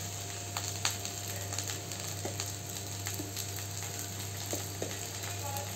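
Okra and sliced onions sizzling in hot oil in a nonstick kadai: a steady hiss with scattered small crackles.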